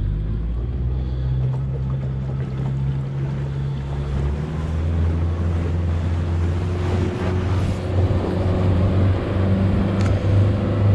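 Fishing boat's motor running steadily with the boat under way, with water and wind noise over it.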